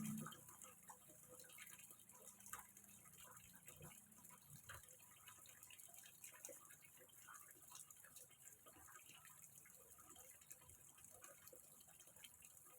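Faint water trickling and dripping into a small fish pond, a scatter of small irregular drips and splashes over a steady hiss.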